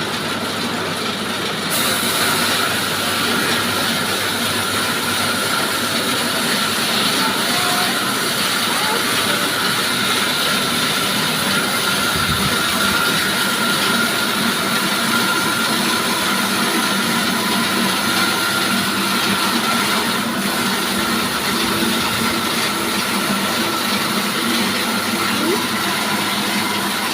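Sawmill running and sawing timber: steady machine noise with a high whine, the hissing cutting noise growing stronger about two seconds in.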